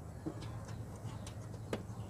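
A few light clicks and taps from the plastic headlight wiring connector and cable being handled, one sharper click about three-quarters of the way in, over a steady low hum.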